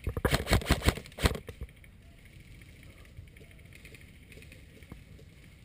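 Airsoft gun firing a rapid string of shots, about a dozen sharp cracks in the first second and a half, then stopping.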